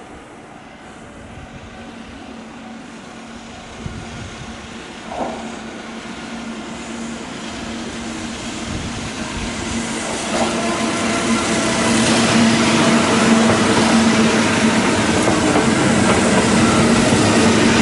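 Kintetsu 15200-series "Aozora II" electric train coming in along the platform and passing close by. It grows steadily louder, with a steady electrical hum under the running noise of the cars, and a brief pitched sound about five seconds in.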